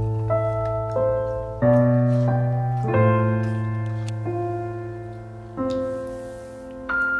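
Background music: slow, gentle solo piano, soft chords and single notes struck about every second or so and left to ring out.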